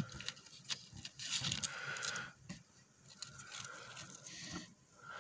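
Pieces of bark and dry leaf litter being handled and shifted by hand: irregular rustling and scraping with scattered light clicks and knocks.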